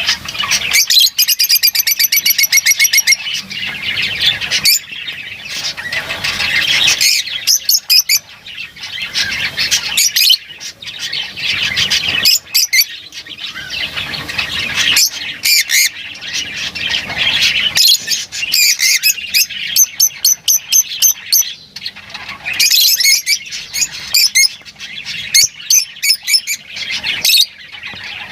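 Lovebirds chattering and squawking in high-pitched calls, broken by fast runs of rapidly repeated shrill notes.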